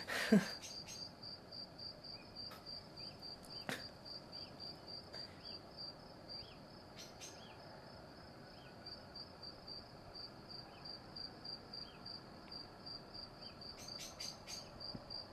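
A cricket chirping steadily: a high, even pulse repeating several times a second, with a few faint clicks in between.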